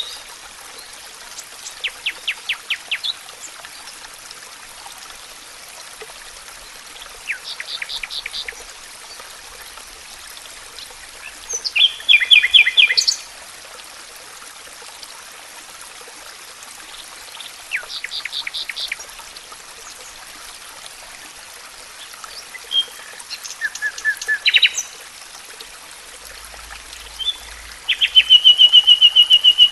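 Songbirds singing short, rapid trilled phrases every few seconds, over the steady rush of flowing water.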